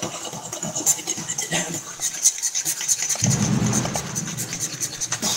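Vocal beatboxing heard over a voice-chat connection: quick hi-hat-like clicks and hisses, joined about three seconds in by a low, buzzing bass sound.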